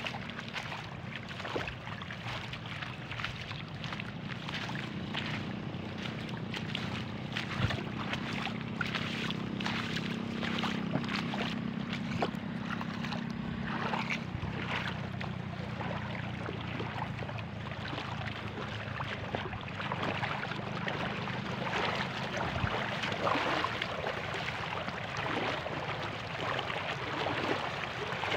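Shallow river water running and splashing around wading feet, over a steady low hum.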